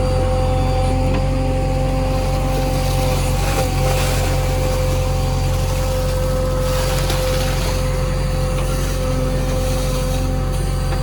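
JCB backhoe loader's diesel engine running steadily under work, with a steady high whine over the engine note.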